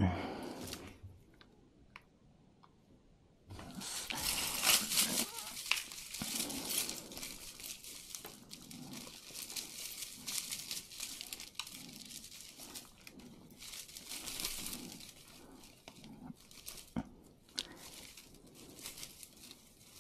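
Hands rummaging through a pile of costume jewelry: irregular crinkling and rustling with many small clicks and taps, beginning about three and a half seconds in after a quiet start.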